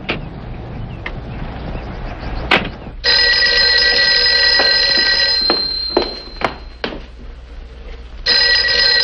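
A rotary desk telephone's bell ringing twice, each ring about two seconds long, the first starting about three seconds in. Before the first ring there is a single thump.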